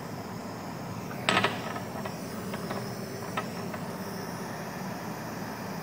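Handheld gas torch burning with a steady hiss as its flame heats the wire joint for soldering. About a second and a half in there is one brief louder sound, followed by a few faint clicks.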